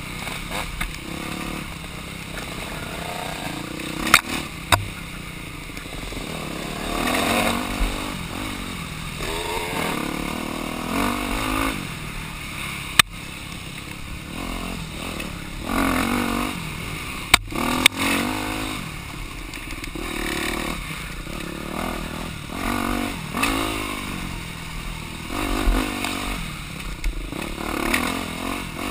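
Dirt bike engine revving up and backing off over and over as the bike is ridden along a wooded trail. A few sharp knocks cut through it.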